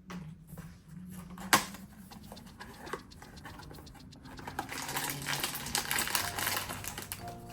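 A blind-box toy package being handled and opened: a single sharp click about a second and a half in, then, from about halfway, continuous crackly crinkling and rustling of the packaging.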